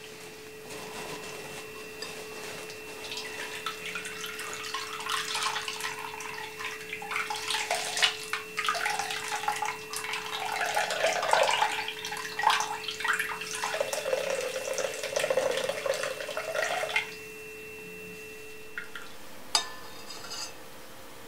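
Coconut milk trickling and splashing into a bowl as grated coconut is squeezed by hand through a cloth, uneven and wet, stopping suddenly a few seconds before the end. Then a spoon clinks a couple of times against the bowl. A faint steady hum runs underneath.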